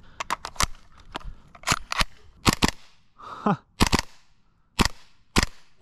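WE-Tech SCAR gas blowback airsoft rifle firing on propane: a string of sharp single shots at an uneven pace, some in quick pairs, each with the hard kick of the blowback.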